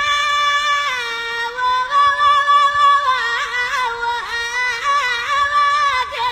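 A solo voice singing tamawayt, the unaccompanied Amazigh sung cry of the Atlas: long held notes with a step down about a second in, then quick melismatic ornaments wavering around the note before settling lower near the end.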